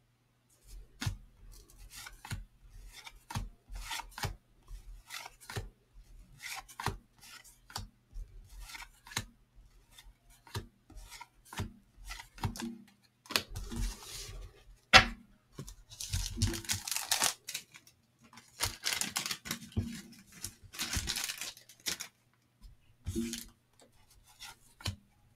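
Stiff cardboard baseball cards being flipped through by hand, each card sliding off the stack with a short snap, about one every second or so. In the second half there are a few longer stretches of rustling and rubbing as cards slide against each other, and one sharp louder snap about fifteen seconds in.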